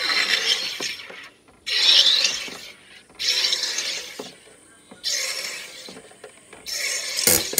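SodaStream soda maker carbonating a bottle of cold water: five hissing, buzzing bursts of CO2 as the top button is pressed and released, each fading over about a second, then a sharp click near the end.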